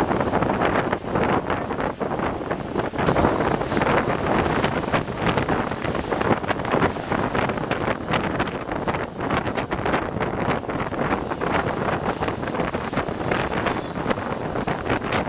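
Steady road and wind noise of a vehicle driving on a wet road, heard from inside, with many small rattles and knocks throughout.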